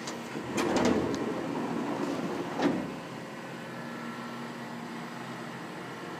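Miyano BNC-34S CNC lathe running with a steady hum. About half a second in, a louder rushing mechanical noise starts and lasts a couple of seconds, ending in a sharp knock.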